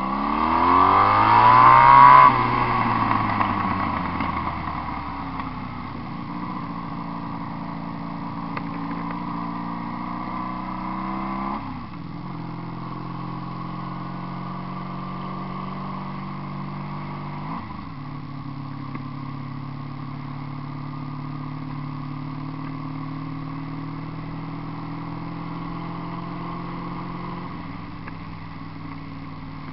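Honda VF750 V4 motorcycle engine through homemade exhaust pipes, ridden on the road. It revs up hard at the start, loudest about two seconds in, then runs at steady revs. The pitch drops sharply around 12 and 18 seconds in at gear changes, and the engine eases off near the end.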